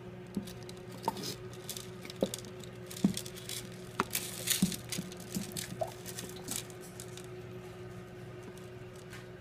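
Light clicks and knocks from a plastic turtle-food jar being handled at a turtle tank, with splashy water noise thickest around the middle, over a steady low hum.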